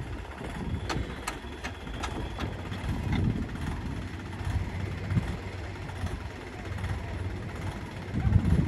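Farm tractor's diesel engine running at low speed, with a handful of sharp clicks between about one and two and a half seconds in.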